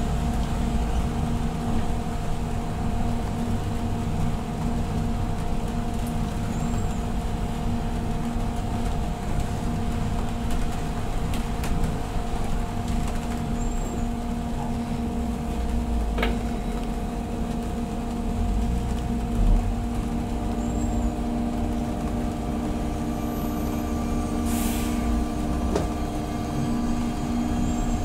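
Auxiliary diesel engine of a Van Hool AG300T trolleybus, heard from inside the passenger cabin. It hums steadily with road rumble while the bus drives, and its note shifts about two-thirds through. A short hiss of air comes near the end.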